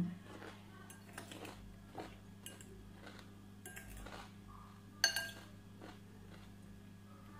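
Metal fork clinking and scraping against a glass salad bowl while picking up pieces of salad, with one louder ringing clink about five seconds in. A steady low hum runs underneath.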